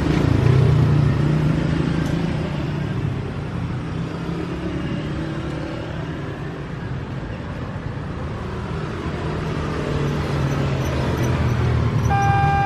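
Steady low engine rumble of passing motor vehicles. Near the end the level crossing's automatic electronic warning siren starts suddenly on a clean, steady tone.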